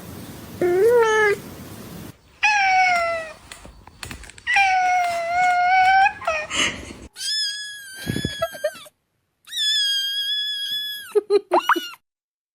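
Domestic cats meowing: a string of drawn-out meows, some sliding down in pitch, then two higher meows held steady and a few short quick calls near the end.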